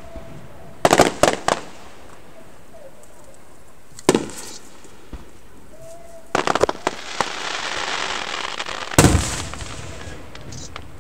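Fireworks going off: a quick run of cracks about a second in, a single bang around four seconds, then a crackling burst that fizzles on for about two seconds, and a loud bang near the end with a trailing rumble.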